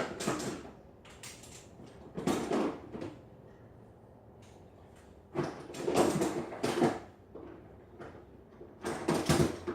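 A bullet mold being slid into and handled in the mold-guide slide of a Lyman Mag 25 melting furnace, with sliding and knocking in four short bursts.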